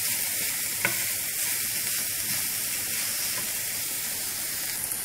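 Shredded chicken and vegetables sizzling in hot oil in a frying pan while being stirred with a wooden spatula, with one sharp click about a second in.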